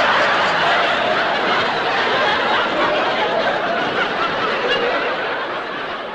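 Large audience laughing heartily after a punchline, a dense sustained roar of laughter that eases slightly near the end.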